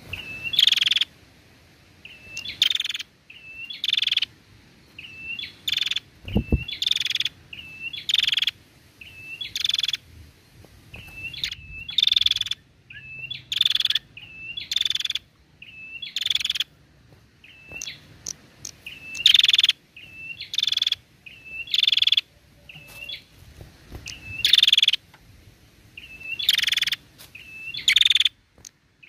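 Female prenjak, a tailorbird, calling over and over: each call is a short curled note followed by a louder, wider note, repeated about once every second and a half. A low thump sounds once a little over six seconds in.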